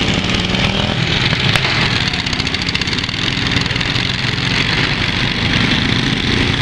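Several riding lawn mower engines running at once as the mowers drive about, one close by, with a steady hum and a brief sharp click about a second and a half in.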